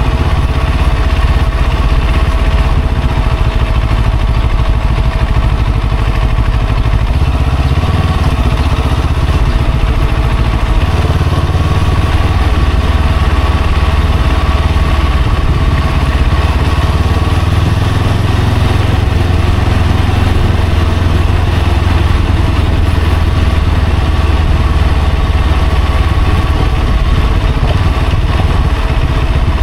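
Vehicle engine and road rumble while moving through traffic: a loud, deep, steady drone that shifts slightly now and then, with a faint steady whine above it.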